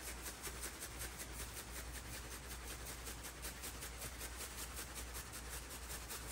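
Salt-and-pepper rub shaken from a shaker bottle onto a brisket: the granules rattle in the bottle and patter onto the meat in a quick, steady rhythm, about six shakes a second.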